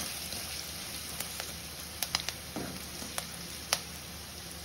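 Boiled potatoes and ground spices frying in ghee in a kadhai: a steady soft sizzle as the masala is roasted, with a few sharp clicks scattered through it.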